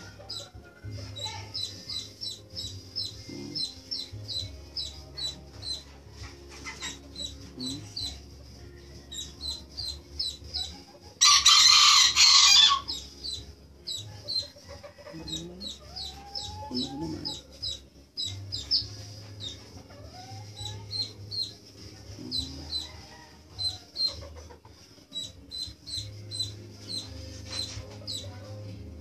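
Serama chick peeping rapidly and continuously while held in the hand, several high peeps a second. About eleven seconds in, a rooster crows once loudly for about a second and a half, the loudest sound.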